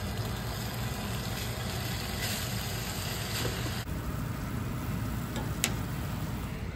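Diced marinated beef frying in a pan, sizzling steadily in its juices as a spoon stirs it. One sharp click a little past halfway.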